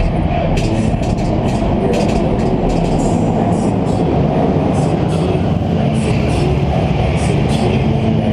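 Car engines running loudly in an indoor arena: a steady, dense rumble.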